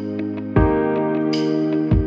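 Instrumental background music: held chords with a low drum beat, striking about half a second in and again near the end.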